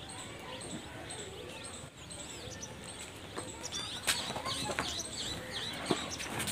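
Small birds chirping over and over in quick, high, down-and-up chirps that come thicker from about halfway through. A few sharp knocks fall around four and five seconds in.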